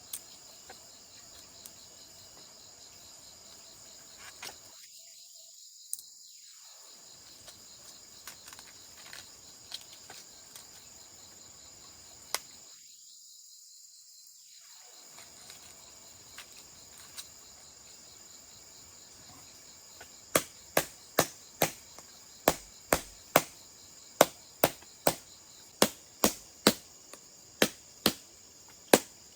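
Crickets or other insects chirring steadily. In the last third, a run of sharp blows, about two a second, begins and grows louder than the insects.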